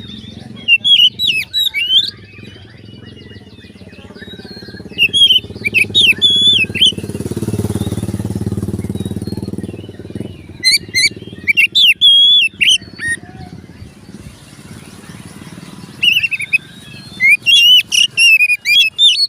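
Oriental magpie-robin (kacer) singing in four loud bouts of rapid, varied whistled phrases, with pauses between them. A low rumble swells and fades in the middle.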